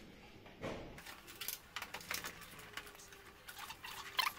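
Light metallic clicks and clatter of hand tools and parts being handled on a go-kart chassis, with a duller knock about a second in and a quick run of clicks near the end.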